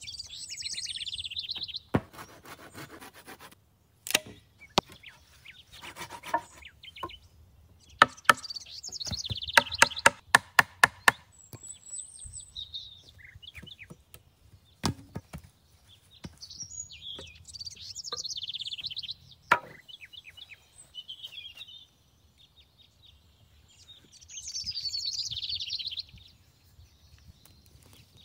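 Sharp chopping and knocking blows on wood, scattered single strikes and one quick run of about a dozen blows near the middle. Songbirds chirp and sing between the blows.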